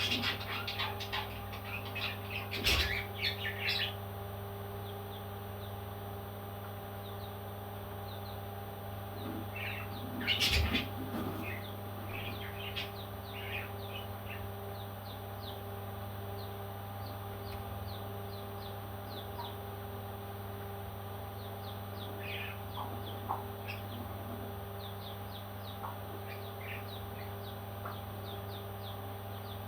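Baby parrots chirping, with many short high calls throughout and louder clustered bursts in the first few seconds and about ten seconds in. A steady low hum runs underneath.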